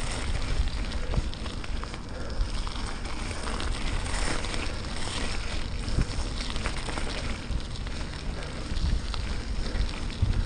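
Bicycle tyres rolling over a wet gravel path, a steady crunch scattered with many small clicks and pops from the stones, with wind buffeting the action camera's microphone as a low rumble.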